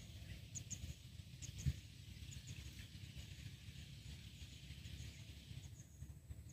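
Quiet riverside ambience: a steady low rumble under faint high bird chirps that come in pairs every second or so, with one soft thump about a second and a half in.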